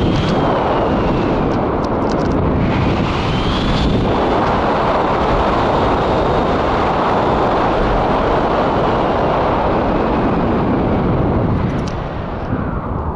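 Loud, steady wind rushing over the camera microphone on a paraglider in flight, with a faint whistle that rises and falls twice. The rush eases near the end.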